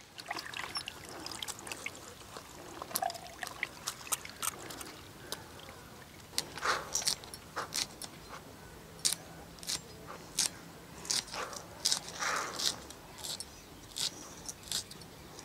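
Knife cutting green onion stalks held in the hand: irregular small crisp clicks and snips, with a couple of short swishes. Some light water splashing in the first couple of seconds.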